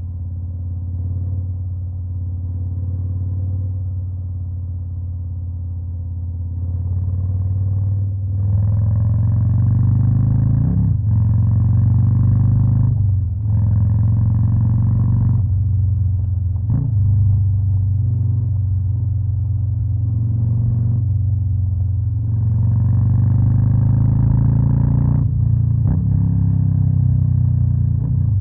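Harley-Davidson Fat Boy's Stage 2–tuned V-twin running: a steady low idle for about seven seconds, then louder under throttle, its pitch rising and dropping several times.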